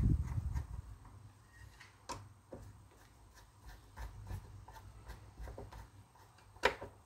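Small clicks and knocks from the circular saw being handled on the bench, over a faint run of evenly spaced light ticks, with one sharper click near the end. The saw's motor is not running.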